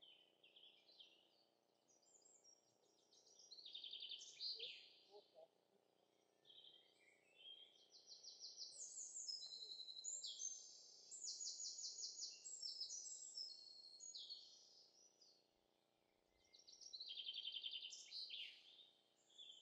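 Songbird singing fast, high trilled phrases of rapidly repeated notes, in three bouts a few seconds apart, the middle one lasting about six seconds.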